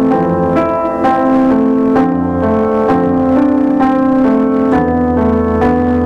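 Piano music: a melody of notes struck about twice a second over held low bass notes.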